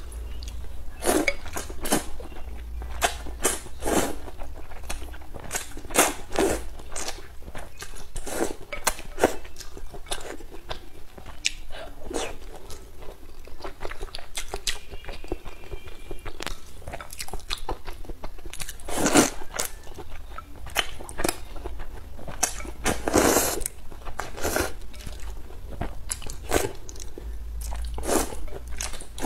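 A woman eating hot and sour sweet potato glass noodles up close: wet chewing and mouth clicks throughout, with longer slurps of noodles now and then, several in the second half.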